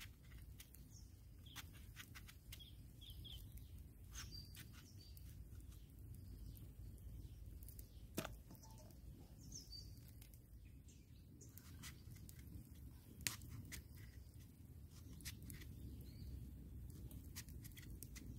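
Quiet, faint clicks and crunches of a knife trimming the stems off small brinjals and slitting them by hand over a steel bowl, with two sharper clicks about halfway and two-thirds through. Faint bird chirps.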